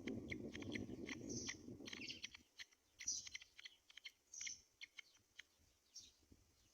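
Short high bird chirps, about one every second and a half, over many small clicks and rustles. A low rumble underneath fades out a little over two seconds in.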